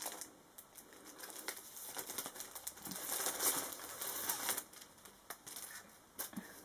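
Rustling and crinkling of packaging being handled, with scattered small clicks and taps. The rustling is louder in the middle.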